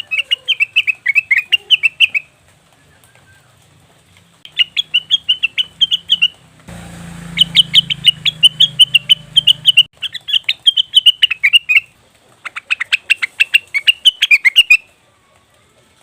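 Cucak wilis (leafbird) calling: five fast runs of quick repeated chattering notes, each lasting about two seconds, with short pauses between them. A low hum sits under the middle run.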